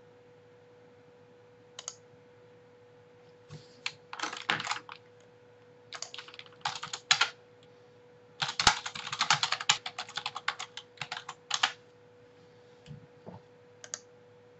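Typing on a computer keyboard in several irregular bursts, with one sharp keystroke about nine seconds in, over a faint steady hum.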